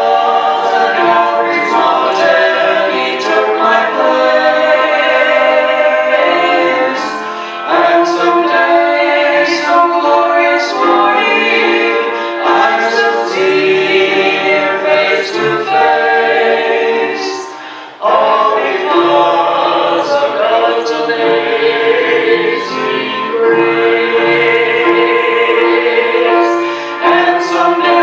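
Gospel song sung by several voices in harmony, men and a woman together, in long held phrases with short breaks between them.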